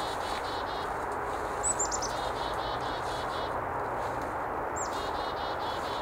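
Black-capped chickadee giving its chick-a-dee call over and over: each call is a short high note followed by a string of buzzy, evenly spaced "dee" notes, heard about three times, over a steady rush of background noise.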